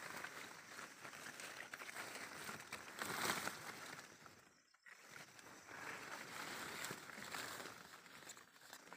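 Coffee-plant leaves rustling and brushing against the handheld camera as it is pushed through the foliage, with a short break about halfway through.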